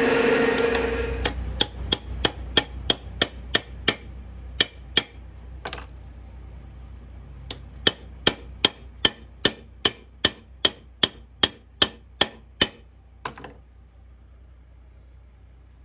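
Drill press motor running, stopping about a second in; then a hammer striking metal in quick, even taps, about three a second, in two runs of a dozen or so strokes, with one last hit near the end.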